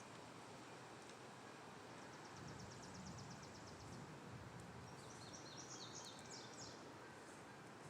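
Near silence with a faint steady hiss, broken by a distant rapid high-pitched trill about two seconds in and a few short high chirps between about five and six and a half seconds: small wild animal calls in the woods.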